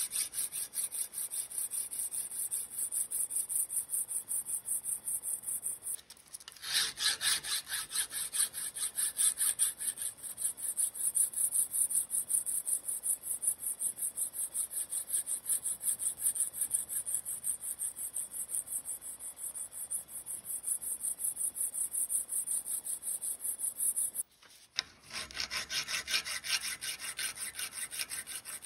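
Hand file rasping back and forth across the rusty steel head of a claw hammer held in a bench vise, in quick even strokes. The filing breaks off briefly twice, and near the end a round file works the inside of the claw.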